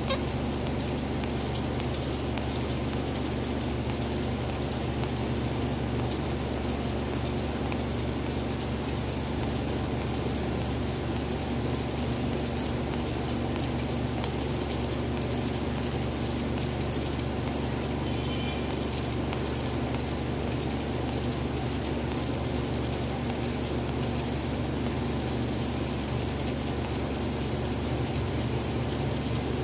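A steady low hum and background noise, with faint, repeated small scratches of a thin stick dabbing and spreading glue on a loudspeaker cone.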